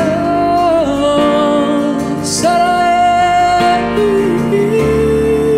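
Worship song: a singer holds long sustained notes over strummed acoustic guitar.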